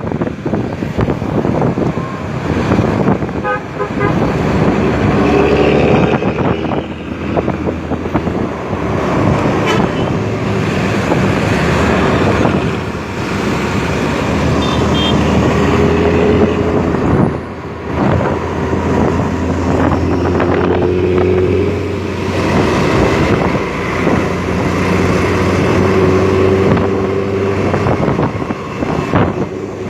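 Luragung Termuda bus's engine running with its growling "ngorok" exhaust. A long horn-like tone sounds several times over the engine.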